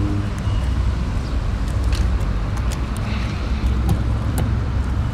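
A steady low rumble of background noise with a few light clicks.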